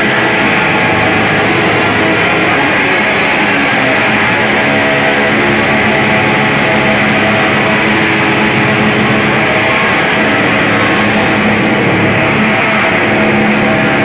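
Noise music: a loud, unbroken wall of distorted electric guitar drone, with sustained tones held beneath a dense hiss and no rhythm or breaks.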